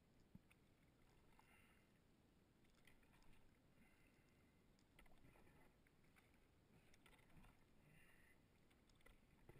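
Faint sound of a canoe being paddled on calm water: soft paddle strokes splashing every second or two, with a few light knocks on the hull.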